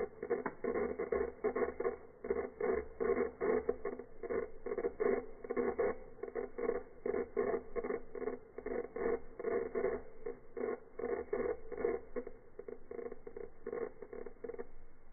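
Experimental noise piece: a muffled, rapid and uneven pulsing crackle, about three to four pulses a second, that stops abruptly near the end.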